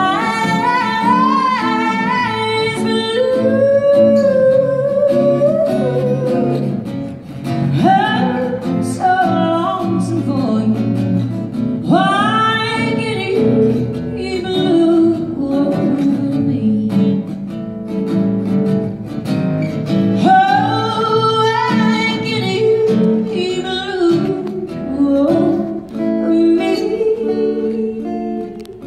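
A woman singing a slow ballad over a strummed acoustic guitar, her voice holding long notes and sliding between pitches.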